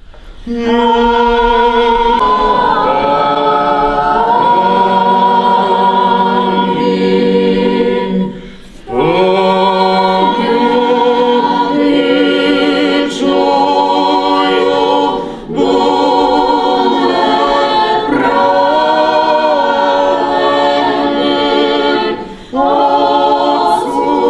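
A small choir singing unaccompanied Eastern-rite church chant in long held chords, the phrases broken by short pauses for breath about every seven seconds.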